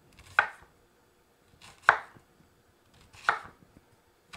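Vegetable knife slicing down through a yellow onion onto a bamboo cutting board: three slow, separate cuts about a second and a half apart, each a short crisp stroke that ends on the board.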